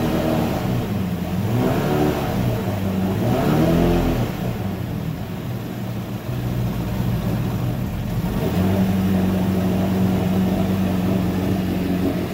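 1959 Mercury Mark 55E two-stroke outboard with a Super Thunderbolt power head, revved in about three short blips over the first four seconds. It then drops back and settles into a steady idle about two-thirds of the way through.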